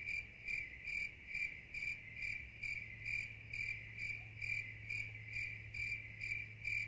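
A cricket chirping steadily, a high pulsing trill at about two chirps a second, over a low steady hum.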